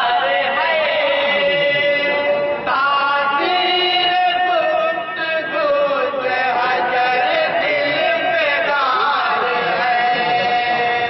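A group of men chanting a devotional naat together, unaccompanied, in long held, gliding melodic lines through a microphone.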